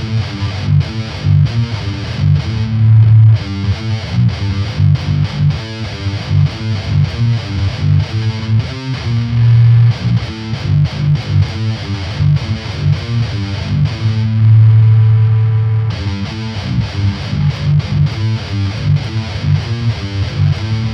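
Aristides electric guitar with heavy distortion playing a low-tuned metal riff: fast palm-muted chugs broken by held chords, with two of them left to ring for about a second or more.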